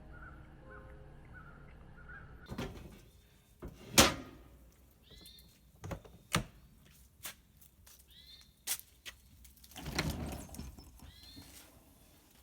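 A series of sharp knocks and thunks, the loudest about four seconds in, as pans and utensils are handled during breakfast making. A bird calls several times between the knocks, short repeated calls.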